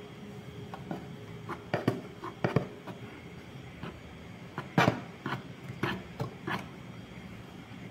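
Spoon and jar knocking and tapping against a bowl as flour is tipped in: an irregular string of light clicks and knocks, the loudest about five seconds in.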